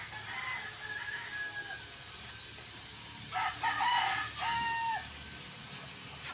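A rooster crowing once, about three seconds in: a few broken notes followed by a long held note. A fainter call sounds in the first two seconds over a steady background hiss.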